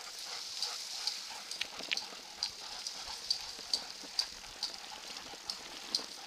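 A bicycle rolling fast along a dirt trail, towed by two running Chinook dogs in harness, with a light, sharp tick repeating about twice a second over a steady rolling noise.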